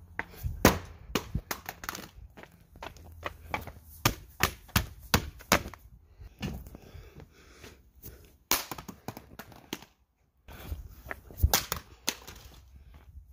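Footsteps and handling knocks on a phone while walking: an irregular run of sharp clicks and thuds, broken by a brief silence about ten seconds in.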